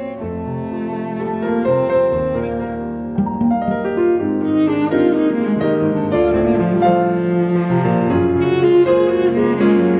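Background instrumental music with held notes that change from one to the next, growing slightly louder.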